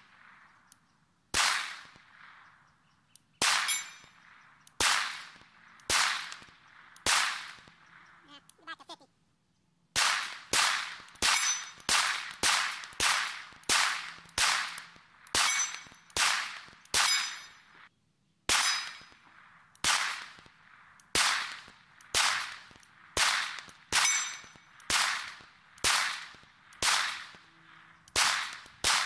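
Glock 17 Gen 5 9mm pistol firing a long string of single shots: spaced one to two seconds apart at first, then a quicker, even pace of nearly two shots a second, broken by two short pauses.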